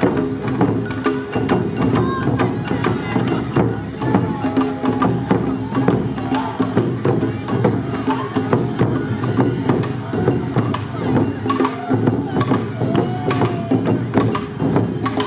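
Awa-odori festival band playing: large barrel drums (ōdaiko) struck with sticks in a fast, driving rhythm, with bright metallic clanging over them.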